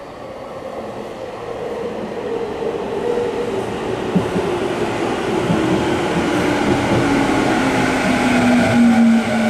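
Electric commuter train coming into a station under braking, its VVVF inverter and traction motors whining in several tones that slowly fall in pitch as it slows, over wheel and running noise that grows louder.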